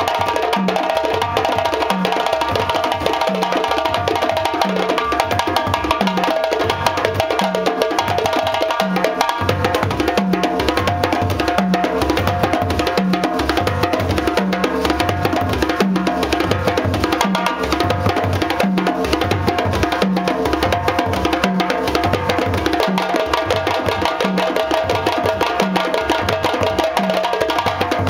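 A West African djembe ensemble plays a fast, dense rhythm. Two djembes are slapped and struck by hand, and a row of rope-tuned bass drums is beaten with wooden sticks, giving a steady low beat about once a second under the hand-drum patterns.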